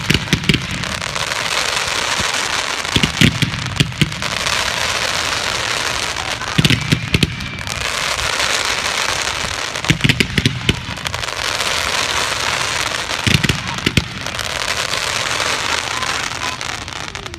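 Aerial fireworks display: a steady hiss and crackle of rising, sparking tails, broken by clusters of sharp bangs every three or four seconds.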